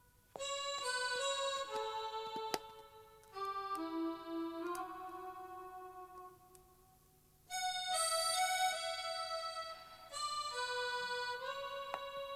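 Background film music: a gentle keyboard melody of electric-piano-like notes played in phrases, with a short lull about seven seconds in.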